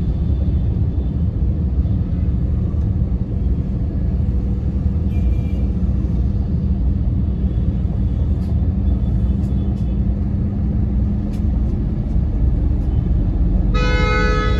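Steady low rumble of a car's engine and road noise heard inside the cabin while driving through city traffic. About a second before the end, a vehicle horn starts honking.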